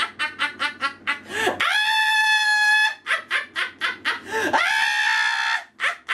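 Voices doing a hen's cackle: a quick string of clucks, then a long high held squawk, done twice.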